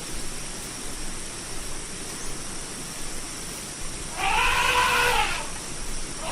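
Elephant trumpeting: after a few seconds of steady hiss, one call about a second long, rising then falling in pitch, about four seconds in, with another starting right at the end.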